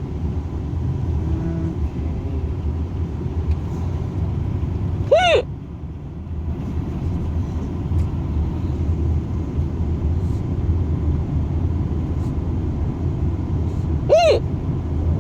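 Two short, sudden voiced hiccups about nine seconds apart, over the steady low rumble of road noise inside a moving car.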